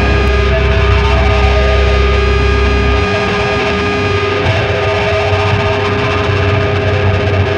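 Heavy music: a distorted electric guitar holding a loud, sustained drone. The deepest bass drops away about three seconds in.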